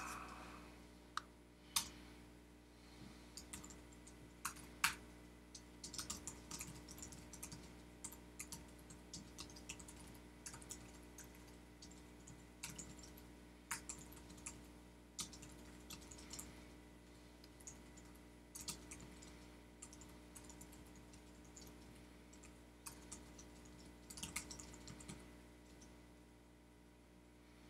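Typing on a computer keyboard: irregular runs of keystrokes with a few sharper, louder key strikes, over a faint steady hum.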